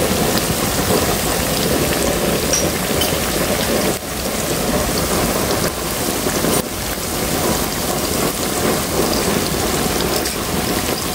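Batter-coated jackfruit pieces deep-frying in a wok of hot oil, a steady loud sizzle of bubbling oil.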